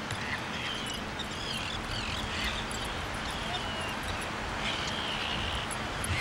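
Gulls calling over and over, short rising and falling cries, over a steady rushing noise of the open shore.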